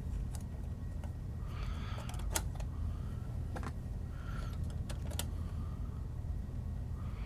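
Metal clicks and short scraping sounds as the cable cover is fitted back onto a Dell PowerEdge R570 server chassis, over a steady low hum.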